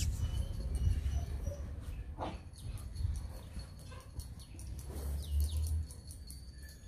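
Rottweiler puppy, about five weeks old, giving two short faint whimpers, about two seconds and five seconds in, while being held and handled, over a steady low rumble.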